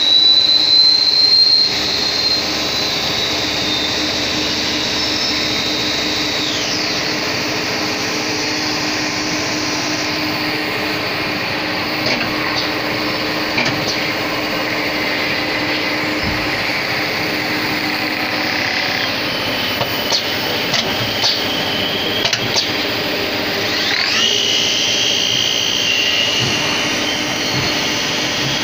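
CNC lathe running a machining cycle: a steady machine hum with a high whine that falls away about six seconds in and comes back with a rising glide near the end. Scattered clicks come in the middle.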